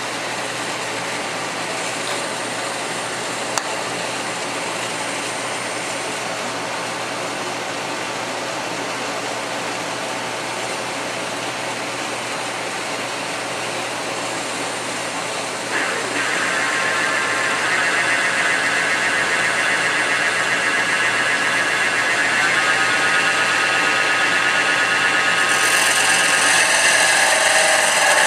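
Mini wood lathe running steadily with a wooden dowel spinning in it. About 16 seconds in, a hand-held turning tool starts cutting into the spinning wood, adding a louder scraping rasp that grows harsher near the end.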